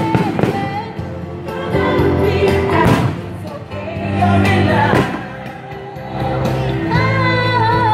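Music with a singing voice plays steadily while fireworks shells go off over it, with a few sharp bangs, the loudest about three and five seconds in.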